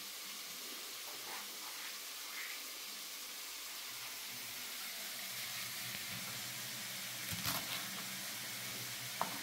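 Chopped leeks and chard stems sizzling in oil in a pot, a steady hiss. A couple of light clicks near the end.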